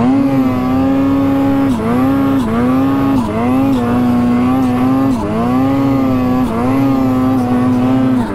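Snowmobile engine at high revs while ploughing through deep powder, the throttle eased and reopened about six times, so the engine note drops briefly and rises back each time.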